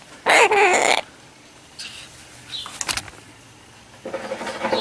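Macaw giving a loud, raspy call with a wavering pitch for under a second. A single click follows, then a softer raspy sound near the end.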